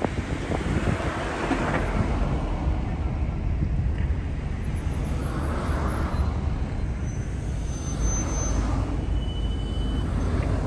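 Steady road traffic noise: a low rumble of car engines and tyres.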